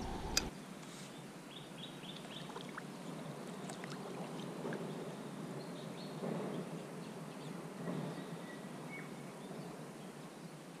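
Kayak paddle dipping quietly into calm water, a few soft swishes a second or two apart.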